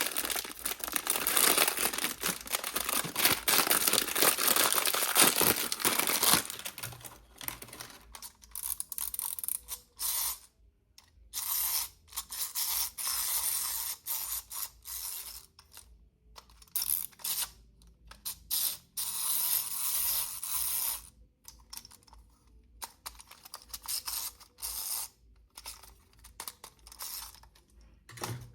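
Crinkling and rustling of plastic toy packaging being handled and opened, dense and continuous for the first six seconds or so, then in short bursts with pauses between.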